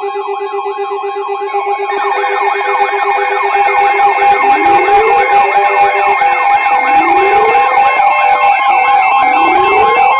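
Emergency alert signal: steady alert tones layered with several warbling sirens. The sound grows louder and denser about two seconds in, and from about four seconds in a rising whoop repeats roughly every two and a half seconds.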